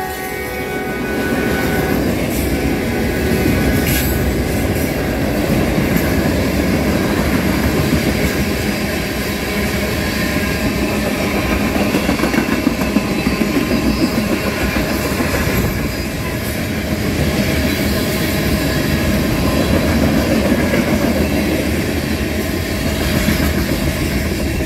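Freight cars of a passing train rolling by close up, covered hoppers and a tank car: a steady rumble of steel wheels on the rails with clickety-clack over the rail joints.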